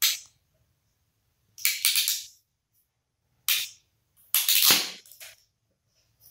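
Hand wire stripper working on copper cable: sharp snapping clicks as its jaws close on the wire and spring open, in four bunches, the last the longest.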